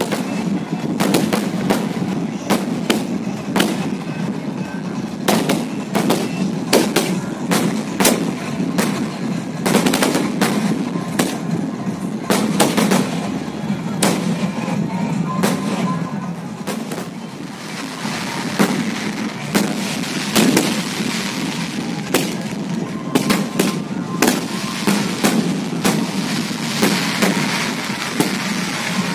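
Fireworks bursting overhead: a dense, irregular string of sharp bangs, several a second, with no pause.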